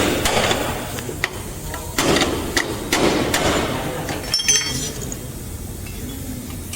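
Hammer striking sheet metal in panel-beating work: a few sharp, separate taps, then a ringing metallic clink about four and a half seconds in.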